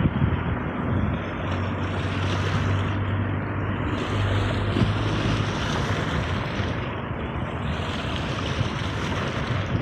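Sea waves washing in, swelling and fading about every three to four seconds, with a low steady hum underneath for a few seconds in the first half.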